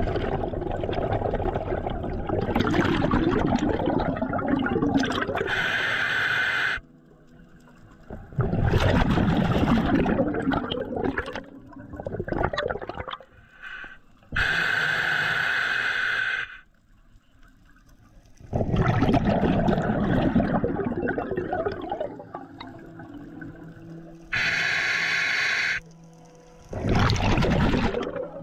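Scuba diver breathing through a regulator underwater: long rushes of exhaled bubbles alternating with shorter, steadier high hisses of inhalation through the regulator, about one breath every nine seconds.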